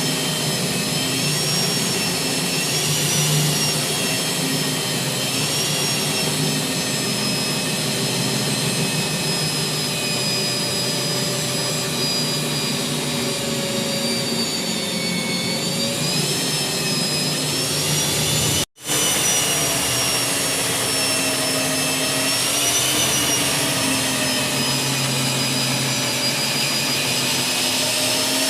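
Electric core drilling machine running under load as its diamond core bit cuts a 4-inch hole through a concrete slab: a steady motor whine whose pitch wavers slightly as the cut bites. The sound breaks off for a split second about two-thirds of the way in.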